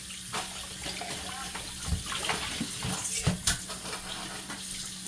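Water running from a kitchen tap into a sink, with a few knocks of handling about two and three and a half seconds in.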